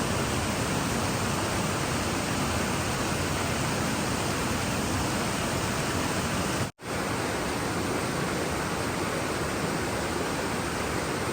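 Waterfalls in a gorge: a loud, steady rush of falling water, broken by a momentary gap of silence about two-thirds of the way through.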